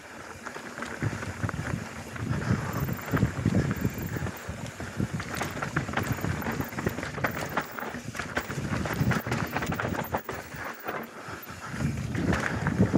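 Mountain bike descending a dirt forest singletrack: tyres running over dirt and roots, with the bike clattering and knocking over bumps and wind rushing on the camera microphone, the rush getting louder near the end.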